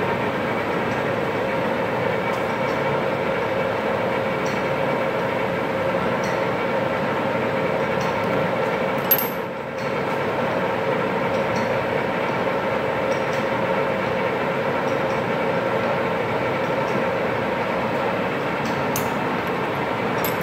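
1994 Kingston hollow-spindle engine lathe running under power: a steady mechanical hum with several held tones. One sharp click about nine seconds in, followed by a brief lull.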